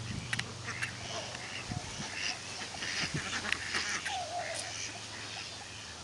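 A flock of domestic ducks and geese calling, many short overlapping quacks scattered throughout, with one longer wavering call about four seconds in.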